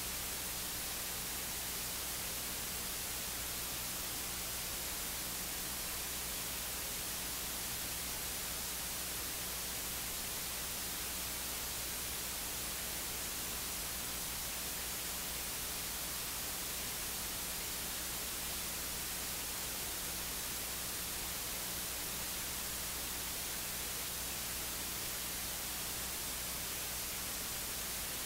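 Steady electronic hiss with a faint low hum and no speech: the recording's audio feed has dropped out, leaving only static while the sermon goes on unheard.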